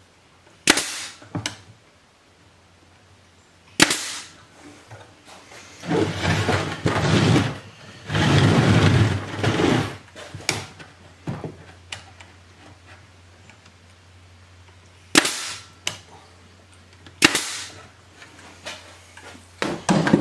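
Small wooden window muntins being toenailed into the frame: a handful of sharp cracks, typical of a pneumatic nailer firing, spread through, with two longer noisy bursts of a couple of seconds each near the middle.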